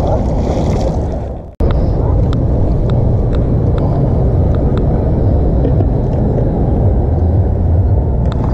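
Steady low wind rumble buffeting an action-camera microphone. At the start, a released smallmouth bass splashes into the water. The sound fades and drops out for a moment about one and a half seconds in, then the rumble returns with scattered light ticks.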